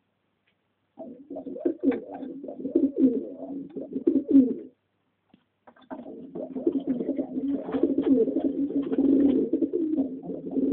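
Homing pigeons cooing: a burst of low, throaty cooing starting about a second in, a short pause midway, then cooing again from about six seconds in.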